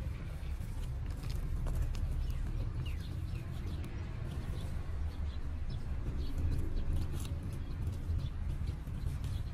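Outdoor ambience: a steady low rumble with faint, short bird chirps scattered through it, and soft scrapes of hands pressing loose dry soil around a seedling.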